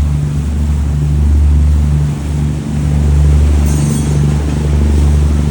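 Boat engine running steadily: a loud, constant low drone with a slight rhythmic pulsing over it.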